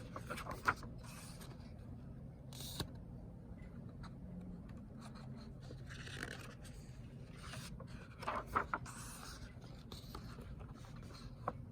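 Faint rustling and scraping of a picture book's paper pages being handled and turned, with a few light clicks, over a steady low hum.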